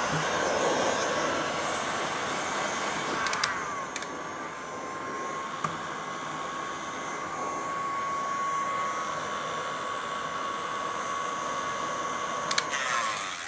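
Handheld electric heat gun running steadily, its fan giving a steady blowing rush with a faint high whine, as it heats the headlight's plastic projector holders.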